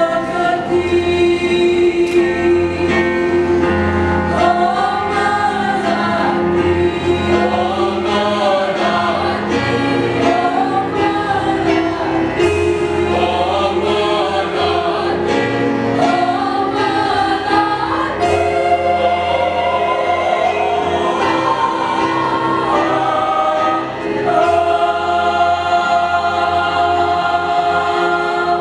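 School choir singing in several voice parts with moving melodic lines, then settling on a long held chord that ends near the end.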